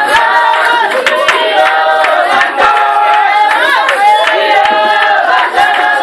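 A group of people singing together, with sharp hand claps and drum beats throughout, accompanying a traditional dance.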